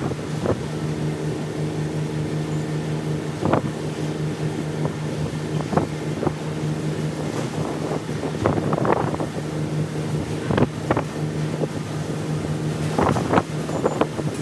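A steady mechanical drone, like a motor or engine running, with a few short knocks over it.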